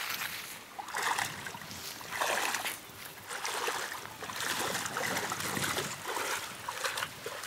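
Legs wading through shallow water, splashing with each stride, about once a second.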